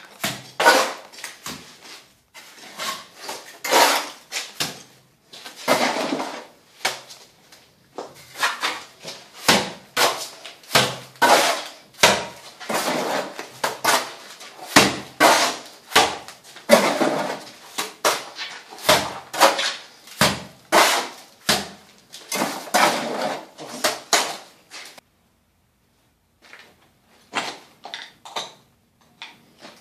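Wet cement mortar being thrown from a trowel onto a brick wall, a run of sharp slaps about one to two a second as a render strip is filled along the levelling guide. The slapping stops about 25 seconds in, with a few faint knocks after.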